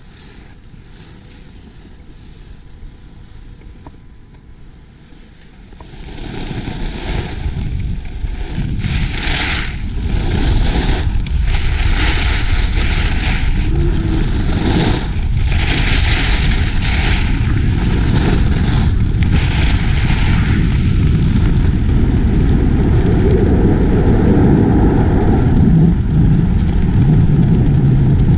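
Wind buffeting a GoPro microphone on a downhill ski run, growing much louder about six seconds in and staying loud, with repeated stretches of hiss from skis scraping over the snow through the middle.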